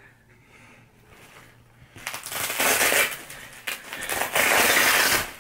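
Two loud rasping, rustling scrapes, each about a second long, as a boxing glove is handled and pulled onto a hand.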